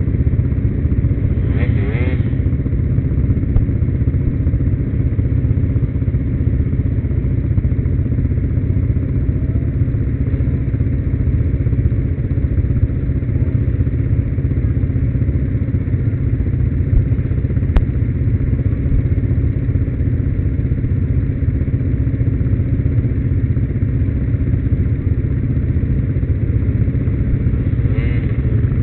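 Quad bike engines idling steadily in a stopped group, a deep, even rumble from the nearest machine. A brief, wavering higher-pitched sound rises over it about two seconds in and again near the end.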